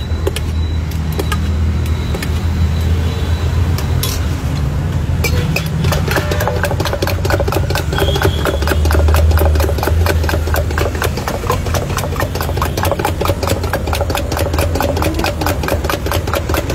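A tool churning aloe vera in a small steel tumbler, rattling against the steel in a fast, even run of clicks that starts about five seconds in. A steady low engine-like hum runs underneath.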